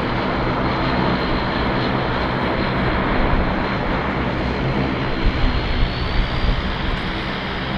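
A Bombardier Dash 8 Q400 turboprop taxiing, its Pratt & Whitney PW150A engines and propellers running steadily, with a thin high whine that rises slightly near the end. A few low thumps come about five to six and a half seconds in.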